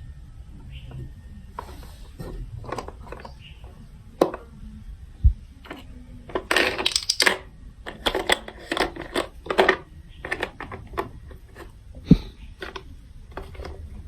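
Hard plastic clicking and clattering from a toy marble run building set: irregular sharp clicks, a dense rattle about halfway through, and two dull thumps, the loudest near the end.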